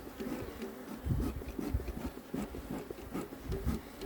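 Beekeeper's smoker bellows squeezed for a few puffs, soft low whooshes of air, mixed with rubbing and scraping from handling the hive.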